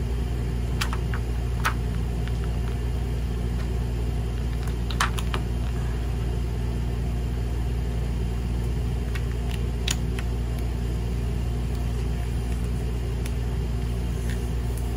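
A steady low hum, with a few light clicks and taps from hands pressing clear plastic film onto a foam board frame.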